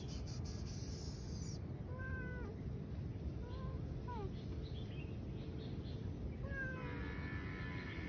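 A domestic cat meowing four times in short calls, each rising and falling in pitch, over a steady low background noise.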